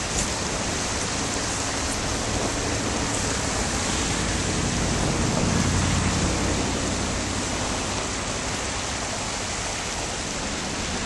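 Holmes Run stream rushing steadily below a road bridge. A low rumble swells and fades around the middle.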